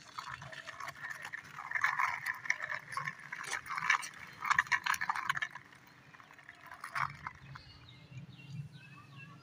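Small plastic wheels of a toy auto rickshaw rolling and scraping over rough cement, making a gritty, clicking rattle that dies down about six seconds in.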